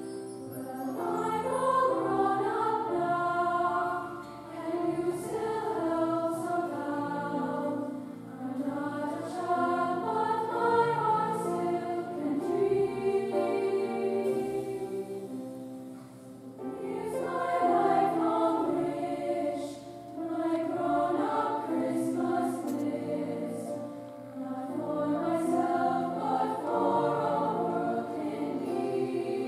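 Youth choir singing a slow Christmas song in parts, with piano accompaniment. The singing comes in phrases of a few seconds each, with short breaks between them.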